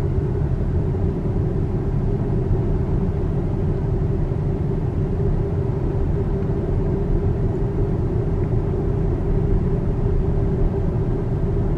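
Steady low road and tyre rumble inside a Tesla electric car's cabin while it drives along at a moderate town speed.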